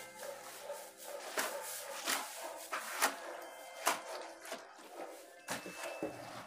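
Hands smearing and patting wet plaster onto a clay chulha, with about four sharp knocks partway through.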